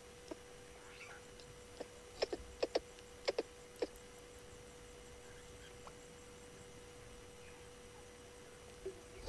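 A faint steady hum with a quick cluster of about eight short, sharp clicks or snaps, several coming in pairs, between about two and four seconds in.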